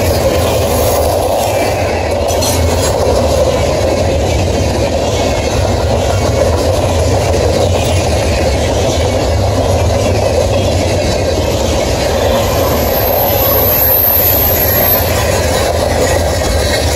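Freight train of covered steel-coil cars rolling past at close range: a steady, loud rumble of steel wheels on the rails, with a brief high squeal about three-quarters of the way through.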